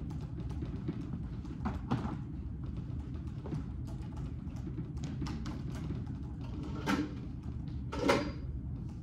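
Steady low room hum with scattered light clicks and knocks, as of things being handled on a desk. There are louder knocks about two seconds in and again about seven and eight seconds in.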